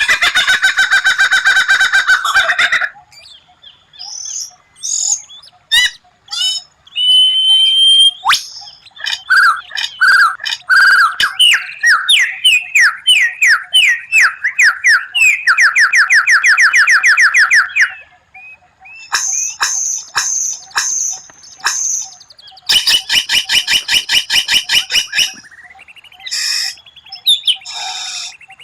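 White-rumped shama (murai batu) singing a varied song: fast rattling trills and runs of quick repeated sweeping notes, broken by short whistles and brief pauses.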